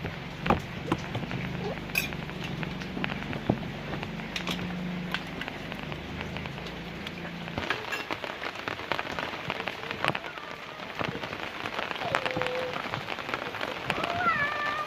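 Steady rain falling on surfaces, with many scattered sharp drips and splats; a low hum runs under it through the first half.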